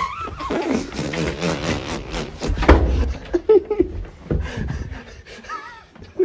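Loud wordless yelling and shrieking from young men in a sudden commotion, starting abruptly. It is a sleeping man's snoring broken off as he is woken by water poured over his head, and the others reacting. It trails off into shorter cries and a high rising-and-falling squeal near the end.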